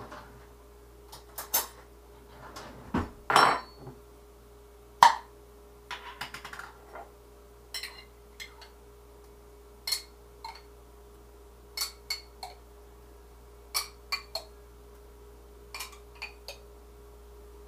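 A spoon clinking and knocking against a jar while pizza sauce is scooped out and spread on the dough. There are a few louder knocks in the first five seconds, then small groups of two or three ringing clinks about every two seconds, over a faint steady hum.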